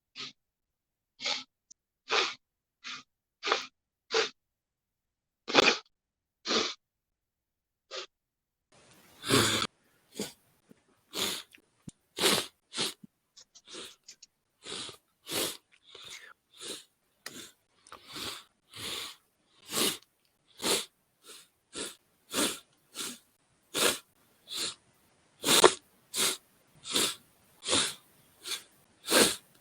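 Repeated short, sharp sniffles, a run of quick sniffs through the nose, spaced out at first and then coming steadily more than once a second from about nine seconds in.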